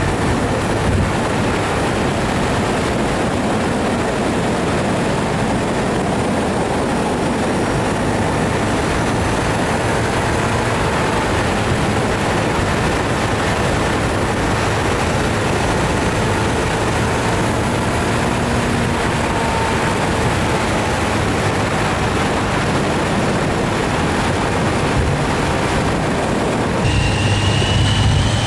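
Wind and road noise rushing past a motorcycle-mounted action camera at riding speed, with the engine's low drone underneath. About 27 seconds in the sound changes abruptly to a louder engine note with a rising whine as the bike accelerates.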